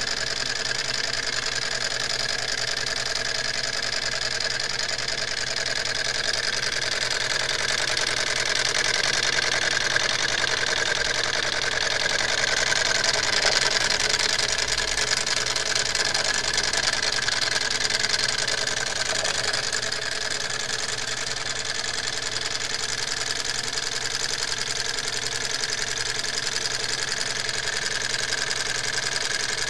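Small homemade tin-can Stirling engine running steadily, its flywheel, crank and piston mechanism making a fast, even mechanical rhythm that grows a little louder midway.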